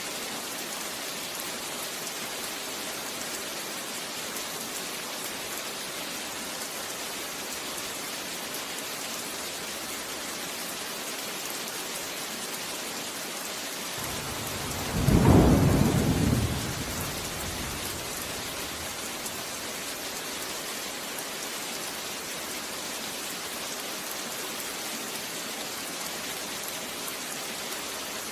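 Steady rain falling, with one clap of thunder about halfway through: the loudest sound, a deep rumble that swells for about a second and dies away over the next two.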